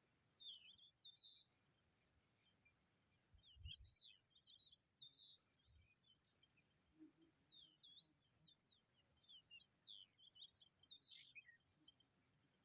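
A small bird chirping faintly in three bursts of quick, high-pitched notes, the last and longest bout running several seconds, with a couple of soft low bumps in between.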